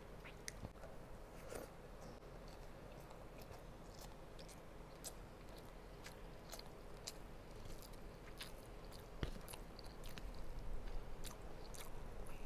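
A person chewing chicken and rice, with soft, irregular wet mouth clicks and smacks that come a little more often and louder in the second half.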